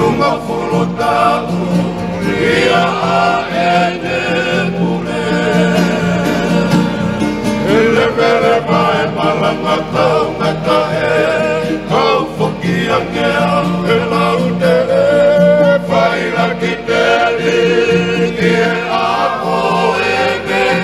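Tongan tau'olunga song: a group of men singing together in harmony to acoustic guitar accompaniment.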